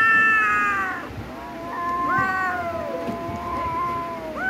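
Kittens meowing in long, drawn-out cries that sag in pitch at the end: a loud cry in the first second, then a longer one of about three seconds with a second cat's cry overlapping it, and another starting just at the end.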